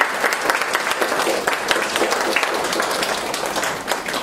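A small group of people applauding, many hands clapping steadily.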